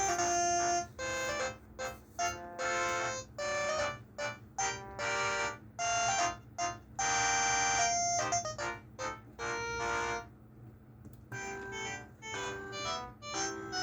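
Huawei ETS688 phone playing a ringtone through its loudspeaker: a quick melody of short, bright electronic notes. The melody stops about ten seconds in and, after a brief pause, a tune starts again, over a faint steady hum.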